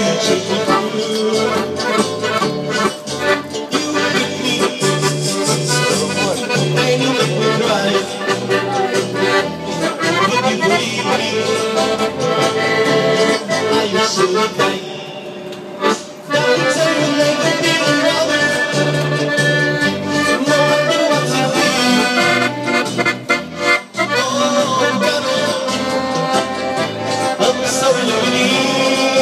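Accordion played live: a melody over a bass that pulses on an even beat. The playing drops away briefly about halfway through, then carries on.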